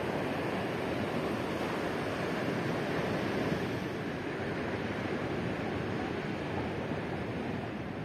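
Ocean surf breaking on a pebble beach: a steady, continuous rush of waves, easing slightly near the end.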